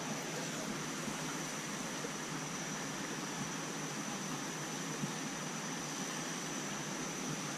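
Steady even hiss of creek water running over rocks, with a faint thin high whine held steady over it.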